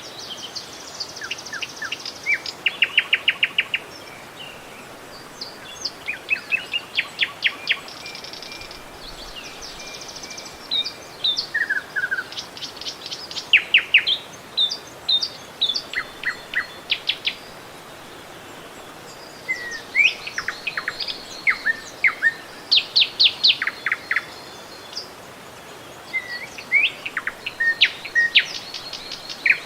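Songbirds singing and calling, with repeated fast trills and short chirps coming in phrases throughout, over a steady hiss of running river water.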